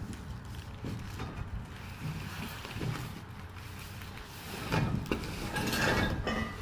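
Cardboard box being handled and its flaps worked open, then a louder rattling scrape starting about five seconds in as the box is tipped and the wrapped, padded frame tubes of a junior trampoline slide out onto the tiled floor.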